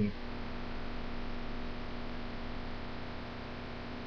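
Steady low hum with an even hiss underneath.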